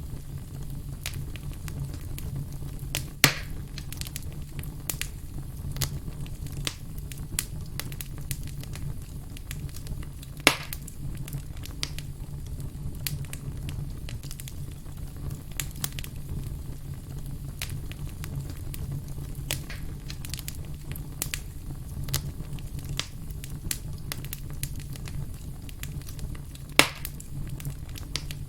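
Wood fire burning with a steady low rumble and constant light crackling, broken by three loud sharp pops, about 3, 10 and 27 seconds in.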